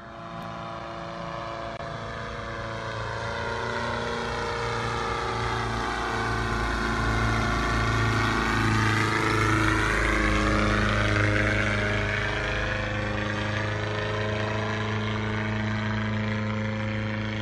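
Aerodrome Airplanes Fokker D7 replica biplane in flight: steady engine and propeller drone that grows louder as the plane comes closer, loudest about ten seconds in, then eases slightly.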